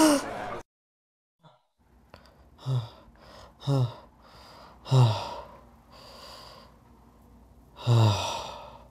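A man breathing hard, wide awake and startled: four loud, heavy voiced breaths with a falling pitch, the first three about a second apart and the last after a longer pause, with fainter breathing in between.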